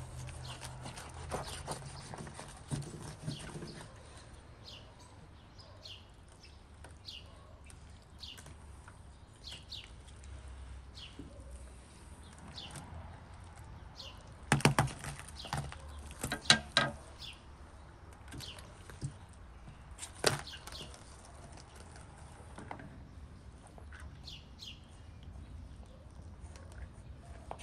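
A bird calling with short, high chirps repeated about once a second. Around the middle come a few clusters of sharp clicks or knocks, louder than the chirps.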